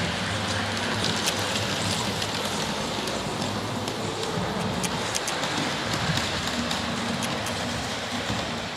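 Model railway train running along the layout's track: a steady rattle of wheels on the rails with scattered sharp clicks.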